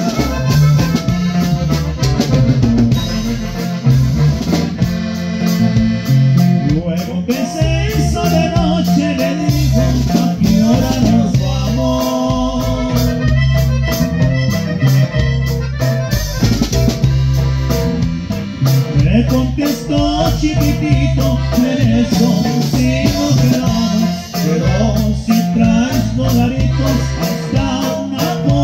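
Norteño band playing live: accordion melody and strummed guitar over a steady bass beat.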